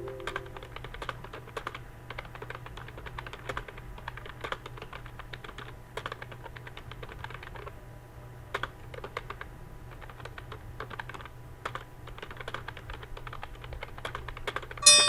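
Computer keyboard being typed on fast and steadily, a dense irregular run of key clicks. A ringing chime fades out at the start and another chime sounds near the end.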